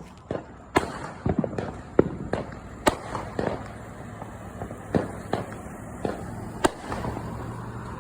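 Neighbourhood fireworks going off: a string of sharp bangs and pops at uneven intervals, some followed by a short rumbling echo, about a dozen in eight seconds.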